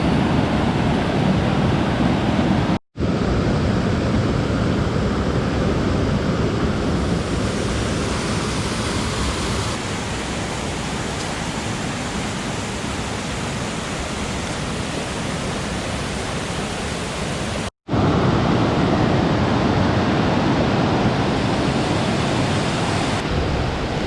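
Steady rush of a mountain stream's flowing water, with two brief cuts to silence about 3 and 18 seconds in.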